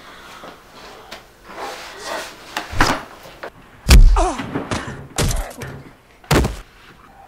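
A staged fight scuffle: a series of heavy thumps and bangs of bodies against a door and the floor, the loudest about four seconds in, with a short falling cry just after it.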